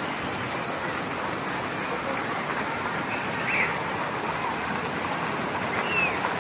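Steady rush of splashing water from the water park's pools and water features, with two faint high calls partway through.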